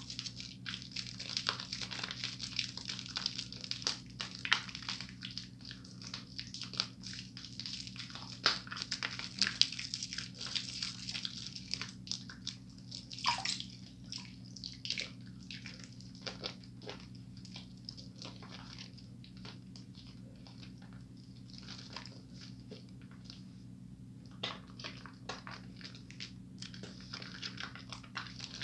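Wet, crackling squish of a bar of soap being rubbed between lathered hands, with many small clicks from the thick foam. It goes softer for several seconds past the middle and picks up again near the end. A low steady hum runs underneath.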